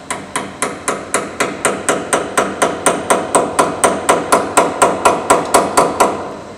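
Rapid, evenly spaced hammer blows on steel, about four a second, driving an eccentric locking collar clockwise onto the vac truck's auger bearing to lock it to the shaft. The hammering stops just after six seconds.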